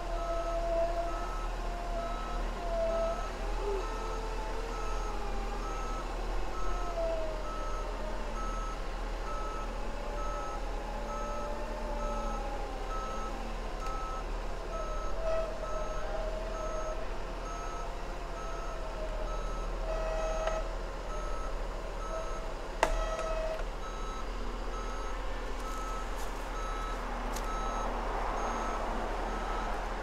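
Bulldozer's backup alarm beeping steadily, about one beep a second, while its diesel engine runs underneath with a wavering pitch; a single sharp click about two-thirds of the way through.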